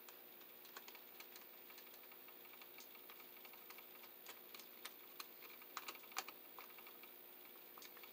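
Faint, irregular clicks and ticks of a screwdriver working a terminal screw on a three-phase receptacle, tightening a wire under the terminal plate. A few louder clicks fall around the middle.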